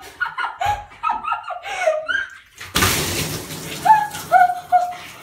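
A bucket of water poured onto a towel-covered person sitting in a bathtub: a sudden splashing rush a little under three seconds in that fades over about a second. Three short yelps follow.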